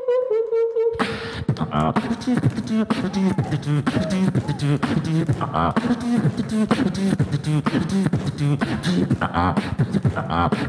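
Beatboxing into a handheld microphone: a held, slightly wavering tone for about a second, then a fast, dense mouth-made beat of kick and snare sounds over a pitched bass line.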